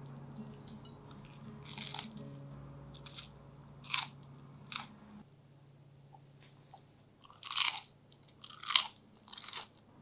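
Crisp crust of thick buttered toast crunching and crackling as it is torn apart: six short crunches, the three near the end the loudest.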